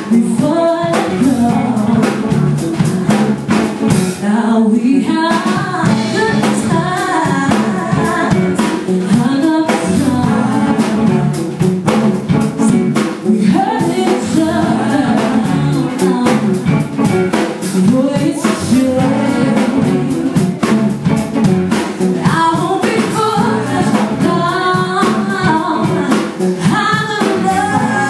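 Live funk and soul band playing, with singers carrying the vocal line over a drum kit and band.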